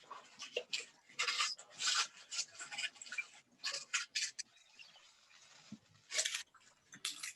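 Paper and craft materials being handled while building a parrot toy: irregular short bursts of rustling and rubbing, one after another.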